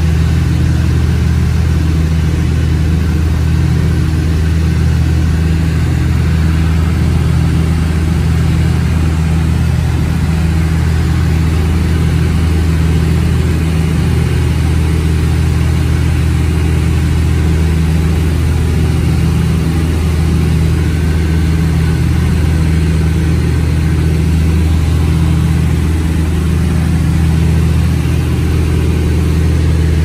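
Twin piston engines and propellers of an Aero Commander L-26B droning steadily in cruise, heard inside the cockpit, with a slow regular throb in the low drone.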